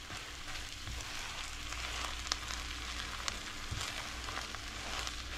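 Chicken, bacon and cheese filling sizzling in a hot nonstick skillet as it is stirred with a silicone spatula, with a few light clicks of the spatula against the pan.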